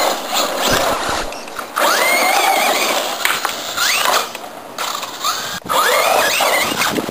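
Traxxas Rustler VXL RC truck's brushless electric motor whining up in pitch several times as the throttle is punched. Under it is a hiss of the tyres scrabbling through dirt and grass.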